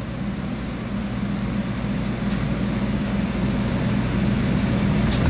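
Space heater running with a steady low hum that grows slightly louder, with one faint tick about two seconds in.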